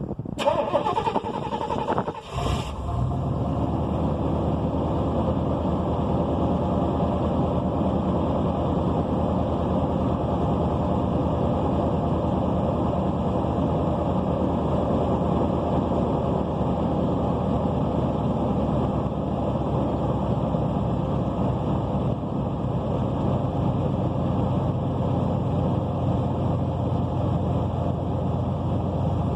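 1992 Buick Roadmaster's 5.7-litre V8 cold-started: it cranks for about two seconds, catches, and settles into a steady idle. The engine has an exhaust leak.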